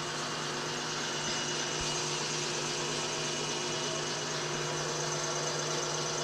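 Milling machine running steadily as a two-flute, center-cutting end mill plunges into round bar stock to cut a shallow socket. It is an even machine hum with no sharp knocks or changes in level.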